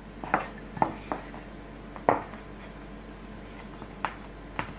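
Sharp knocks of a rolling pin against a wooden table as bread dough is rolled flat, about six at irregular intervals, the loudest about two seconds in.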